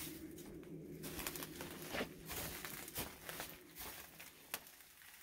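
Footsteps on dry straw and old barn boards: faint rustling and crackling with scattered sharp clicks, the loudest about two and three seconds in.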